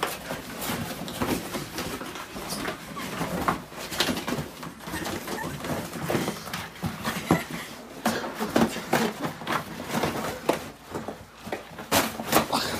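Irregular rustling with many short clicks and taps in a small room.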